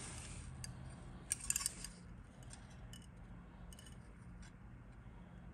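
Plastic model-kit sprues and parts being handled, giving light scattered clicks and a short burst of sharper plastic clicks about a second and a half in. A faint steady low hum runs underneath.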